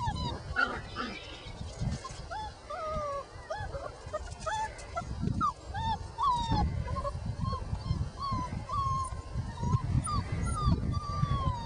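Five-week-old Border Collie puppies whimpering: many short, high whines, one or two a second, some rising and falling in pitch, over low rustling and bumping.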